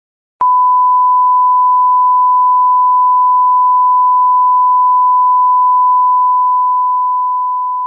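A loud, steady electronic beep: one pure tone around 1 kHz that switches on with a click just under half a second in, holds level, then slowly fades during the last couple of seconds.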